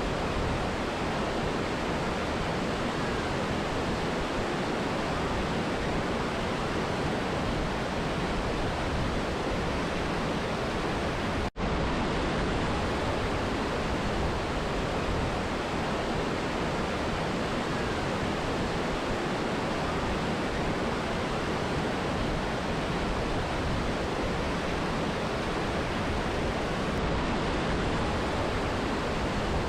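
Steady rush of a mountain river and waterfall, with a split-second gap about eleven and a half seconds in.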